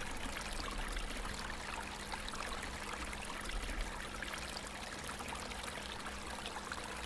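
Creek water running steadily over rocks.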